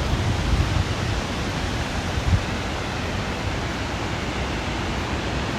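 Harajiri Falls, a wide curtain waterfall, giving a steady rush of falling water, with a few low thumps in the first couple of seconds.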